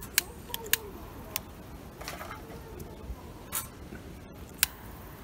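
Ferrocerium fire-starter rod struck six times in uneven succession to throw sparks onto jute tinder in a stainless steel fire stand: short, sharp scrapes, one near the middle a little longer.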